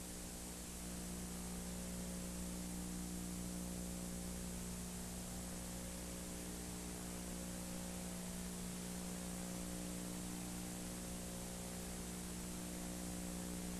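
Steady, faint electrical hum with an even hiss over it, unchanging throughout, the noise floor of an old video recording with no program sound.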